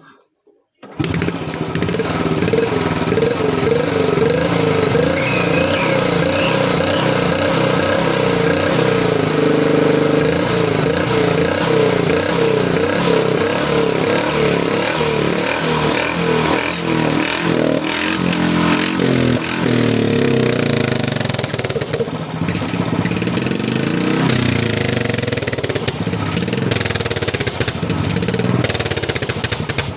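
Royal Enfield Bullet 350's single-cylinder engine starts about a second in and runs with a cut bottle taped over its exhaust outlet. Over the engine beat there is a wobbling, warbling tone, a DJ-like sound.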